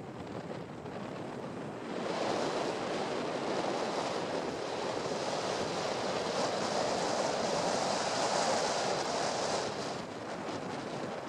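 Steady rushing of wind on the microphone mixed with the wash of open water, with no engine tone. It grows louder about two seconds in and drops back near the end.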